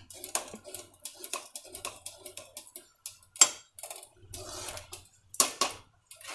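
Metal ladle stirring thick rice kheer in a metal pot: light scrapes and taps against the pot, with a sharp knock about three and a half seconds in and two more just after five seconds.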